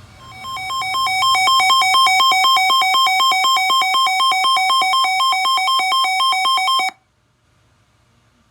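Emergency alert attention tone: an electronic alarm alternating rapidly between two pitches, sounding the start of a severe thunderstorm warning. It swells in over the first second and cuts off abruptly about seven seconds in.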